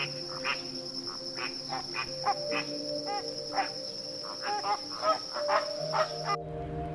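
A steady, high-pitched insect trill with many short, repeated animal chirps, over soft sustained music notes. The trill cuts off suddenly near the end.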